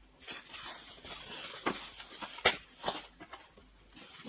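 Rustling of packaging being handled while unpacking a monitor box, with a few sharp knocks and clicks. The loudest knock comes about two and a half seconds in.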